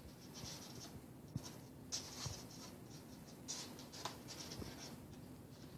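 Stiff paper IQ lamp pieces rustling and scraping against each other as they are bent, twisted and slotted together by hand, with a few soft taps and clicks.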